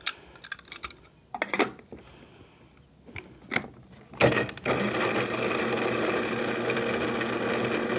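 Electric blade coffee grinder used as an herb grinder. A few clicks and knocks come first as it is handled and its lid pressed on. About four seconds in, its motor starts and runs steadily, grinding mint leaves.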